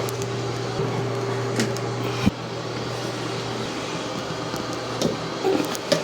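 Electric spin scrubber's motor running with a steady hum, with several short knocks and clicks as the brush head works against the tub; the loudest knock comes about two seconds in.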